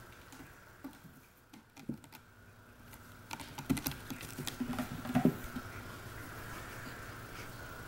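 A two-legged cat's front claws scratching and gripping the rope-wrapped posts and carpeted platforms of a cat tower as he pulls himself up, a quick run of scratches and taps about halfway through.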